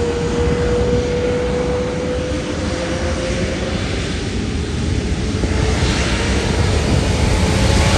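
Airbus A330-900neo's Rolls-Royce Trent 7000 turbofans spooling up on the runway for takeoff: a whine that rises slowly in pitch over a low rumble that grows louder near the end.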